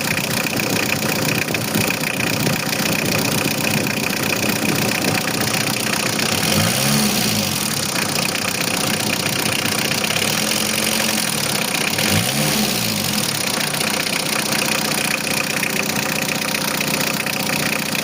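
Van engine idling, revved twice, about 7 and 12 seconds in, with the pitch climbing and falling back each time. The engine is being run to check a newly fitted coolant expansion tank for leaks.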